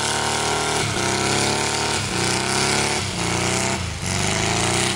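Dune buggy's engine revving hard under load as it climbs a soft sand slope. The revs rise and then drop back about once a second, again and again.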